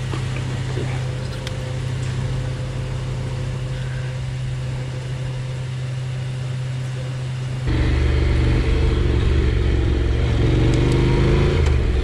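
Honda NC750X parallel-twin engine running steadily, then about eight seconds in suddenly louder and rising in pitch as the motorcycle accelerates away.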